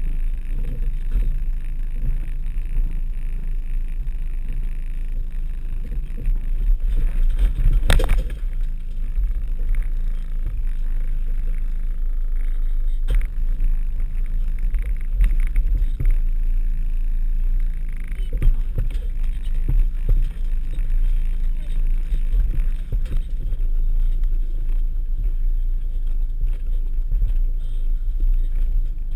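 Volkswagen T3 Syncro's engine running low and steady at slow off-road speed, heard from inside the cab, with small knocks throughout. Two louder sharp knocks come about eight and thirteen seconds in.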